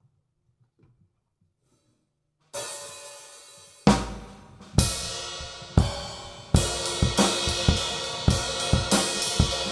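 Acoustic drum kit: after a quiet start, a cymbal wash comes in about two and a half seconds in, followed by heavy crash-and-kick hits about once a second. Around two-thirds of the way through, the drummer breaks into a faster beat with cymbals and snare.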